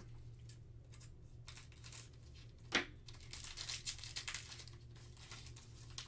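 Foil trading-card pack wrapper being torn open by hand: crinkling throughout, one sharp rip a little under three seconds in, then a stretch of denser crinkling.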